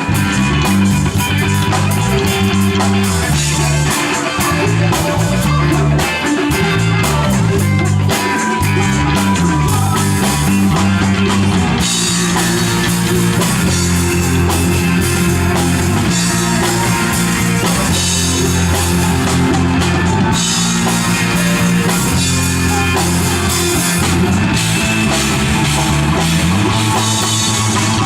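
Live rock band playing a song at a sound check: drum kit, guitar and a bass line that moves steadily underneath.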